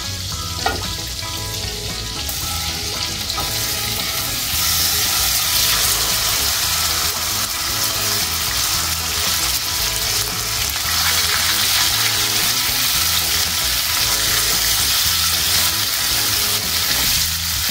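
Boneless chicken pieces frying in hot butter and oil while being sautéed: a steady sizzle that grows louder a few seconds in. A short knock sounds under a second in.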